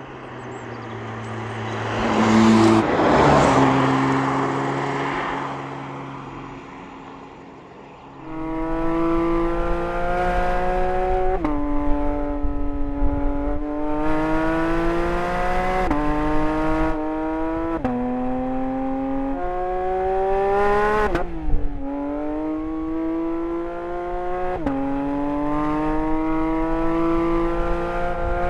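Porsche 992 GT3's naturally aspirated 4.0-litre flat-six: first a car passing by, its sound swelling and fading. Then the engine pulls hard, its note climbing and dropping sharply at each upshift, about half a dozen times.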